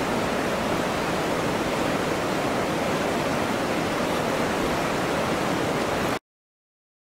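Steady rush of fast, shallow river water churning over rocks and small rapids, which cuts off abruptly about six seconds in.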